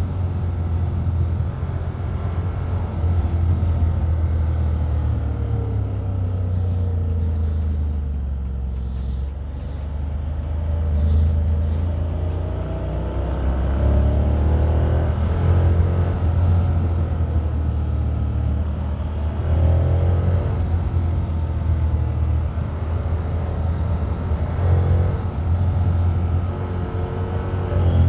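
Honda X-ADV 750's parallel-twin engine and exhaust under way, its pitch rising and falling repeatedly as the rider accelerates and eases off.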